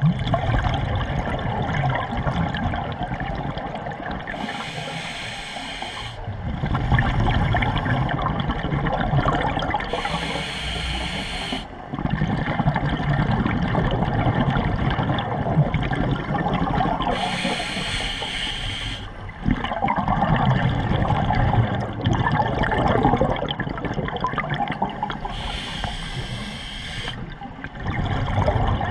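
Scuba diver breathing through a regulator underwater: short hissing inhales alternating with longer bouts of exhaled bubbles, about four breaths.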